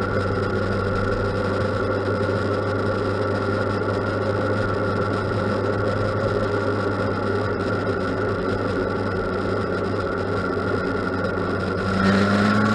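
2006 Yamaha FZ1's inline-four engine running steadily at a held speed, then revving up near the end. The owner reports the revs stuttering and skipping between about 2,000 and 3,000 rpm, and suspects the throttle position sensor or an ignition coil.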